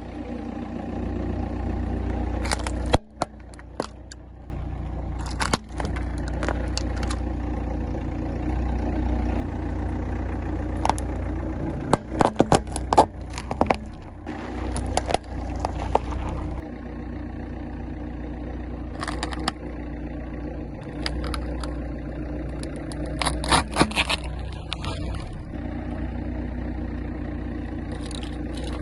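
A car's engine running at a slow, steady pace while its tyres roll over and crush objects, with repeated clusters of sharp crunches and cracks.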